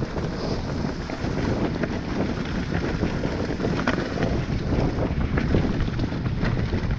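Wind rumbling on the microphone of a dirt-bike rider's GoPro, a rough steady buffeting with a few faint knocks.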